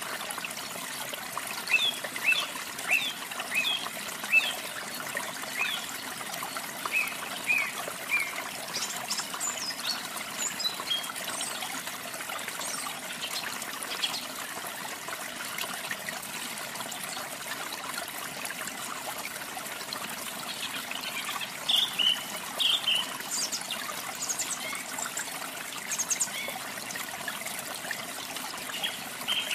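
Steady rush of falling water from a waterfall, with songbirds chirping over it in several short runs of quick high chirps.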